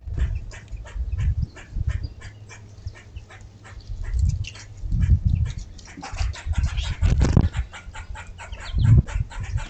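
Small birds at a seed feeder, with many sharp clicks and short chirps over repeated low rumbles.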